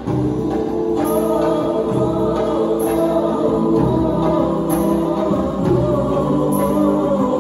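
Nasyid vocal group of male voices singing a cappella-style harmony into microphones. A full sustained chord comes in at the start, backed by a high percussion strike about every two seconds.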